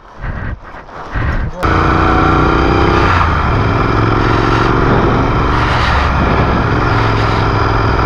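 A motorcycle engine running steadily while riding, with wind noise. It starts abruptly about a second and a half in, after a quieter stretch of handling noise.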